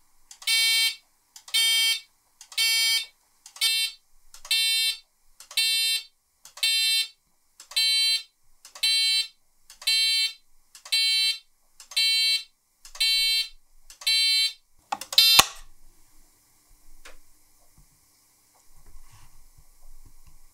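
Electric alarm buzzer sounding in even pulses, about one half-second blast each second, some fourteen times, then stopping with a single sharp crack about fifteen seconds in.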